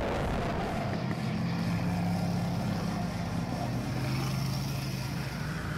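Race vehicle engines running on the oval track, a steady engine note that drops to a lower pitch a little before four seconds in.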